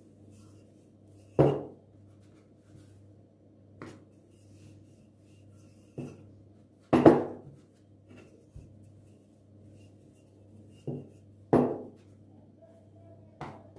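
Wooden rolling pin rolling out soft dough on a floured wooden counter, with a series of sharp wood-on-wood knocks as the pin strikes and is set down on the board, the loudest about seven seconds in. A low steady hum underneath.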